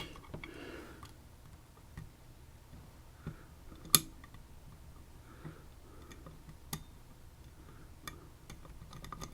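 A few sparse, small sharp clicks and taps, the loudest about four seconds in, from a lock and its parts being handled over quiet room tone.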